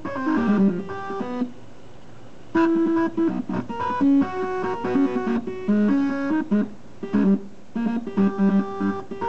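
Stepper motors mounted in an aluminium case, driven from a MIDI file, play a melody as buzzy stepped tones, often several notes at once. The sound drops back for about a second near the two-second mark.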